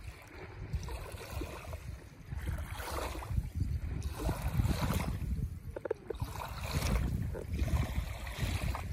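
Small waves lapping on a sandy lagoon shore, swelling every couple of seconds, with wind buffeting the microphone.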